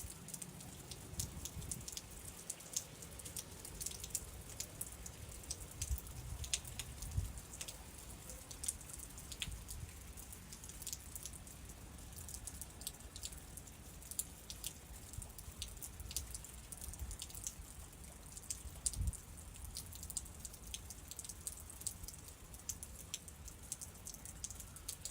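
Raindrops falling in scattered, irregular ticks on surfaces around the phone, over a low uneven rumble, during a nearby tornado's storm.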